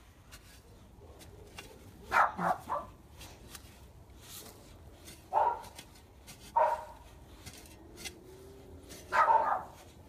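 A dog barking: a quick run of three barks, then single barks every second or so. Between the barks come faint scrapes and clicks of a hoe chopping into loose soil.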